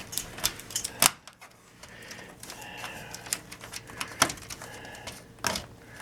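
Irregular plastic clicks and knocks from a SATA cable connector and its wires being handled and worked into place inside a computer case, with three louder knocks about a second in, near four seconds and near the end.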